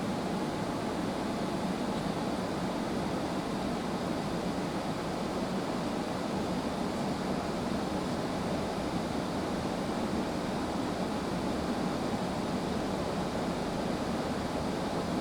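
Steady rush of blown air heard from inside a car cabin, even and unchanging, from the demister fan blowing on the windscreen and the car wash's drying blowers.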